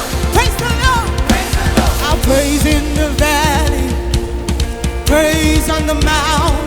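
Gospel worship band music with a drum kit, with a voice singing wavering, melismatic runs without clear words.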